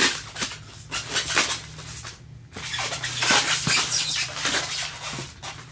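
Packaging being handled: irregular rustling and crinkling of a plastic bag and paper wrap around a statue, with a few light knocks.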